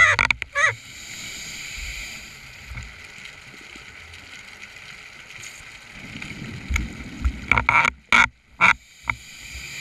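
Scuba diver's regulator breathing, heard through the camera's underwater housing: gurgling bursts of exhaled bubbles at the start and again about eight seconds in, with a steady hiss of breathing in between.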